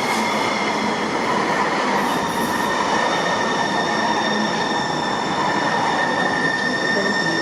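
Sound Transit Link light rail train running on the track, a steady rumble with a high wheel squeal and whine held on several steady pitches, the main squeal growing stronger about three seconds in.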